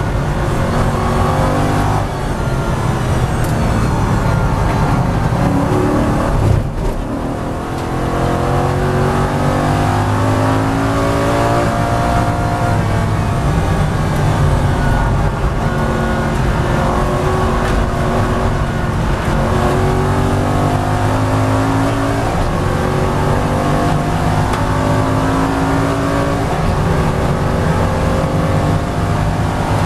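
Aston Martin N24's 4.3-litre V8 race engine, heard from inside the cockpit, pulling hard through the gears. The revs climb and drop back at each upshift, with a brief lift off the throttle about seven seconds in.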